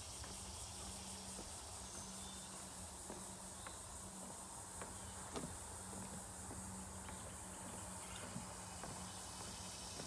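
Footsteps on a wooden boardwalk, a soft knock every half second to a second with the strongest about five and a half seconds in, over a steady high-pitched insect chorus.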